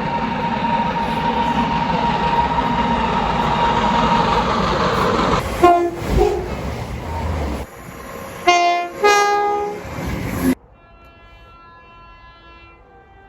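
A passing train rumbling over the rails with a steady high squeal, followed by several short blasts of a train horn. After an abrupt cut, a fainter train horn sounds a long, steady chord.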